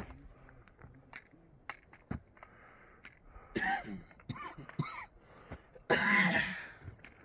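A hiker breathing hard with wheezy breaths, then coughing harshly about six seconds in, with light scuffs and clicks of steps on rocky ground early on.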